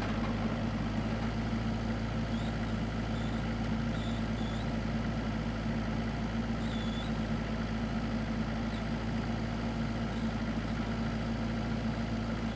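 Kubota KX121-3 mini excavator's diesel engine idling steadily.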